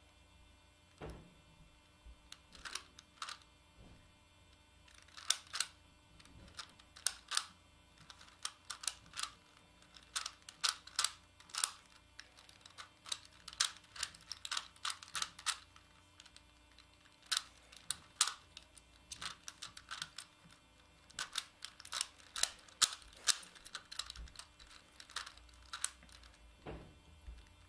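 A Megaminx puzzle being turned by hand: rapid clicks of its plastic faces snapping through turns, in quick runs broken by short pauses.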